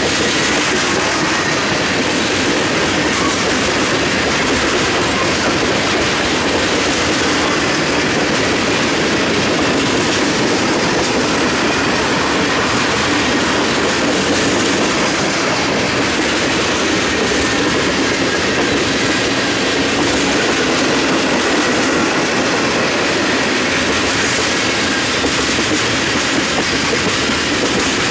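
Freight cars of a mixed train, covered hoppers and tank cars, rolling steadily past at close range: the loud, even noise of steel wheels on rail.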